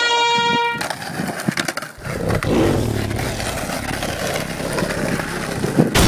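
A trumpet note ends a moment in, then skateboard wheels roll steadily over pavement, a continuous gritty rumble from about two seconds on.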